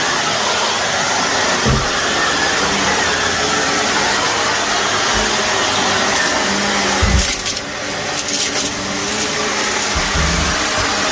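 Shark vacuum cleaner running steadily over carpet, sucking up dry soil and debris. About seven seconds in, the sound dips briefly and a short spell of crackling comes through.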